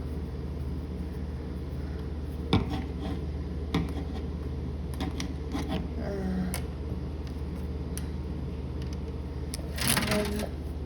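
Scattered small clicks and scrapes of a small screwdriver and metal screws working loose from a light-switch faceplate, with a louder cluster near the end, over a steady low hum.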